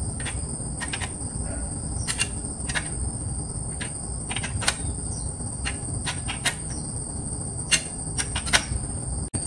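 Sharp, irregular metallic clicks and ticks from hand work on a bicycle's chain and rear sprocket, over a steady high-pitched insect drone.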